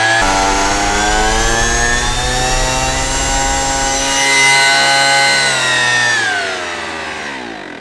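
Ryobi cordless leaf blower's electric ducted fan running steadily with a loud whine. About six seconds in it is switched off, and the whine falls in pitch and fades as the fan spins down.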